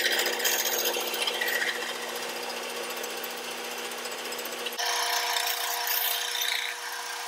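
Bandsaw running and cutting through PVC pipe: a steady motor hum under the hiss of the blade. The sound starts abruptly, and its hum changes pitch about five seconds in.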